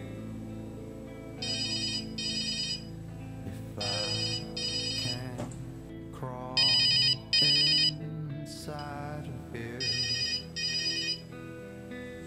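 Mobile phone ringtone in the style of a telephone bell: four double rings, each a pair of short trilling bursts, spaced a few seconds apart.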